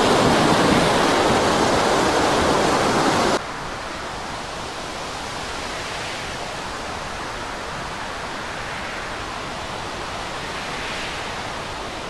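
Loud, steady rush of storm wind and breaking sea spray around a small fishing boat. It cuts off suddenly about three seconds in, leaving a much quieter steady hiss.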